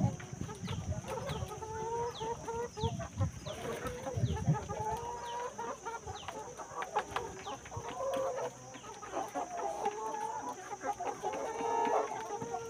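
A flock of chickens clucking, many short calls overlapping throughout.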